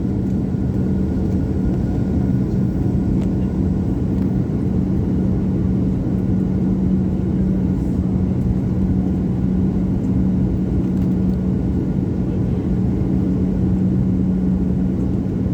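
JetBlue airliner's jet engines running steadily: a constant low drone with a steady hum, holding the same pitch and level throughout.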